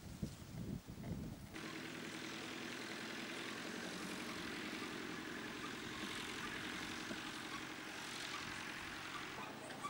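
Low buffeting on the microphone, then, after a sudden change about a second and a half in, a farm tractor's engine running steadily as it pulls a trailer past.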